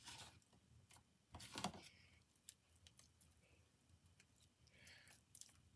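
Mostly near silence, with a few faint squelches and clicks from sticky homemade glue-and-detergent slime being pulled from a bowl and stretched by hand.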